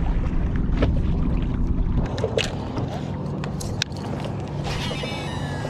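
Boat motor running steadily, a step quieter about two seconds in, with a few light clicks and a thin high whine near the end.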